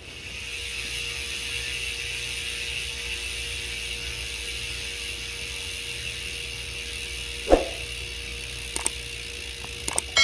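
Bicycle freehub buzzing steadily as the wheel spins freely, the ratchet pawls clicking too fast to count. There is a single sharp knock about seven and a half seconds in and a few light clicks near the end.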